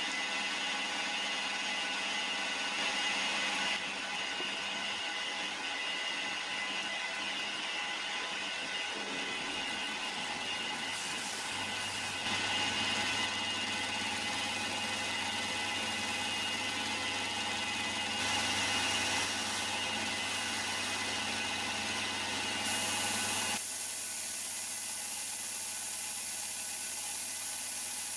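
Milling machine running, its end mill cutting a flat into the side of a metal block: a steady machine whine with the grind of the cut, stepping up and down in level a few times as the cut goes on.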